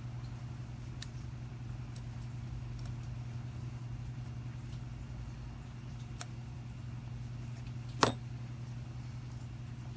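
Small clicks of a 1982 Honda ATC 110 carburetor's parts being handled and fitted back together by hand, with one sharp clack about eight seconds in as a small metal piece is set down on the bench. A steady low hum runs underneath.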